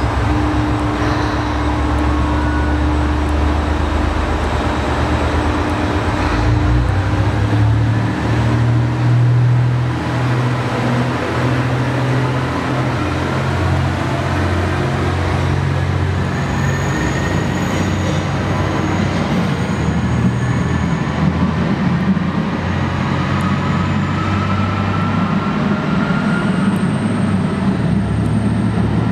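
ET122 diesel railcar's engine working as it pulls away from a platform inside a rail tunnel, its low note climbing as it gathers speed. A faint rising whine joins it later, and the engine stays loud throughout as the sound carries down the tunnel.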